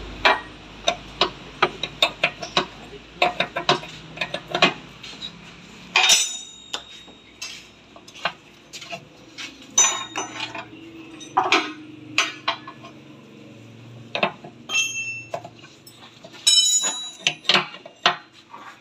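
Irregular metallic clinks and knocks of hand tools on metal, as a hydraulic hose is taken off the vibrator of a Bomag BW 100 AD roller. A faint steady hum runs underneath.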